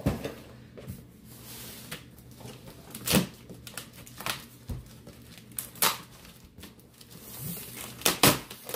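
Packing tape being picked at and peeled off a cardboard box by hand: scattered scratches, taps and short rips on the cardboard, with a longer peeling sound and the loudest rips near the end.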